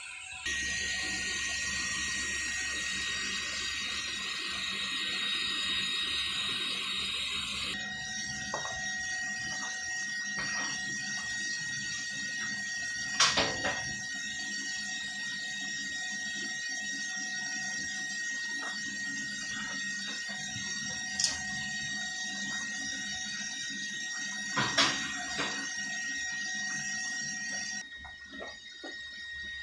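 Coal forge running: a steady rushing hiss of air and burning coal with a faint constant whine. A few sharp metal clanks come through it, one about 13 seconds in and more later.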